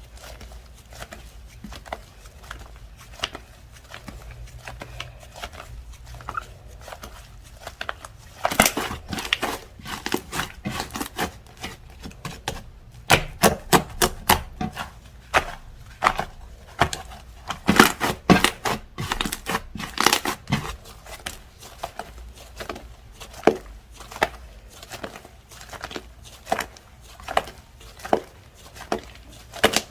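Slime being squished, poked and stretched by hand, giving rapid sharp clicks and crackling pops. The pops are soft and sparse at first, come in loud, dense runs from about eight seconds in until a little past twenty seconds, then ease off.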